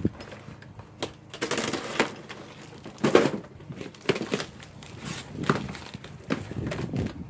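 A cardboard shipping box being torn open by hand, its flaps and tape ripping and crunching, with plastic packaging crinkling, in irregular bursts and clicks.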